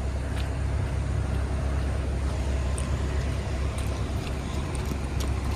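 Fire truck engine idling: a steady low rumble with a few faint ticks on top.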